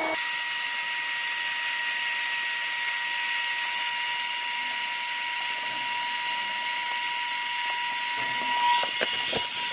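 Marlin electric boat pump running steadily with a high whine and hiss as it inflates the PVC boat's tube, with a few light clicks near the end.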